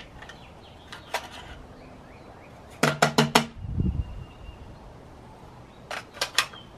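Metallic clicks and clacks of a 300 Blackout rifle being handled and its action worked while a malfunction is sorted out. A single click comes about a second in, a quick run of four near the middle followed by a dull thump, and three more near the end. No shot is fired.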